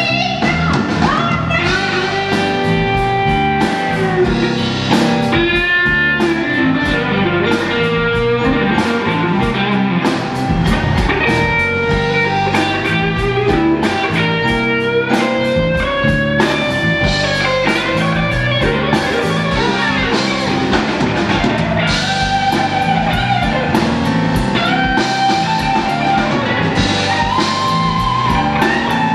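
Blues band playing live, led by a Stratocaster-style electric guitar whose single-note line bends and wavers with vibrato over a drum kit.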